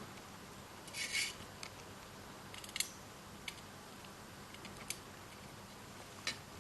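Faint, scattered small clicks and a short scratchy rasp of a small screwdriver, screws and plastic phone parts being handled while a phone is reassembled.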